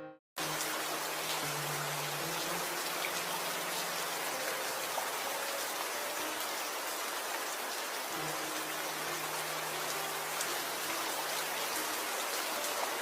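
Steady rain falling, an even hiss of drops with no thunder heard, dropping out for a split second right at the start.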